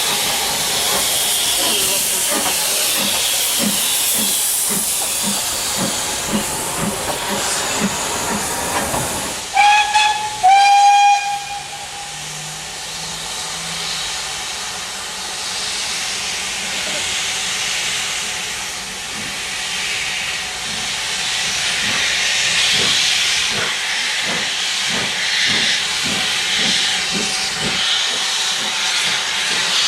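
Steam locomotive working, with steam hissing over regular exhaust beats. About a third of the way in it gives two short blasts on its whistle, then the hissing and beats carry on.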